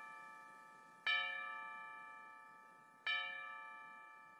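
A bell struck twice, about two seconds apart, each strike ringing with a clear, many-toned ring that slowly fades. The ring of an earlier strike is dying away at the start.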